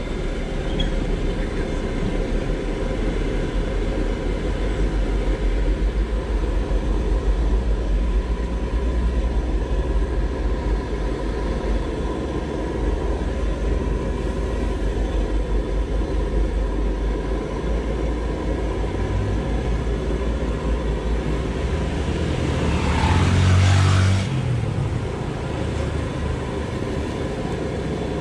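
Steady roar and hiss of a street-food wok stall: the burner under the wok and noodles frying in oil, over road noise. About 23 seconds in, a vehicle passes and the sound swells louder for a couple of seconds.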